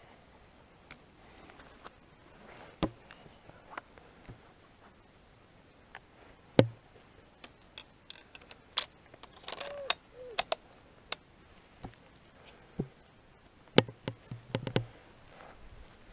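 Scattered sharp clicks and light knocks of a hunter's movements and rifle handling, with two short faint whines about ten seconds in.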